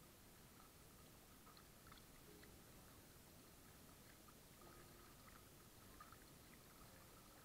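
Near silence, with faint lapping and small splashes of lake water against a kayak's hull as it moves across choppy water.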